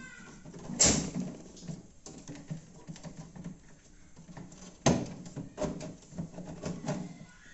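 Plastic freezer-door frame of a single-door fridge being handled and pressed into place: a run of light plastic clicks and knocks, with two sharp snaps, one about a second in and one at about five seconds.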